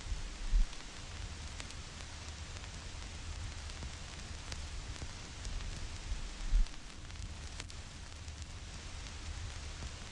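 Vinyl record surface noise: a steady hiss with scattered crackles and pops from the stylus in the grooves, over a low rumble. Two short low thumps stand out, about half a second in and again about six seconds later.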